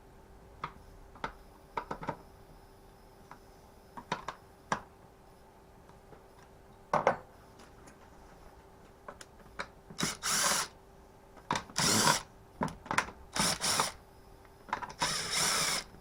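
Power driver spinning out Torx T27 screws from a strimmer's engine housing in four short bursts, with light clicks and taps of the bit and parts being handled before them.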